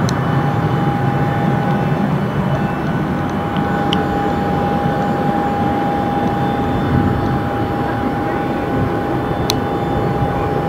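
Steady jet aircraft noise on an airport apron: a low rumble with one steady high-pitched whine over it, and a couple of faint clicks.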